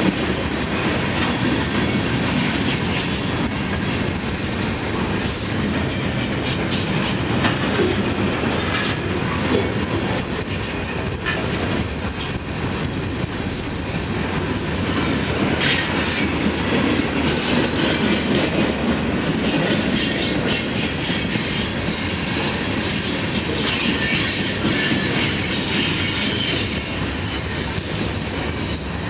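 Freight cars of a passing mixed freight train rolling by close at hand: a steady rumble of steel wheels on the rails, with scattered sharp clicks and clanks from the wheels and couplings.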